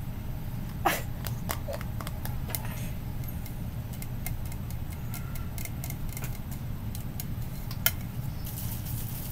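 Fingernails tapping and clicking on a can held close to the microphone, ASMR-style: scattered sharp light taps, with two louder knocks about a second in and near the end.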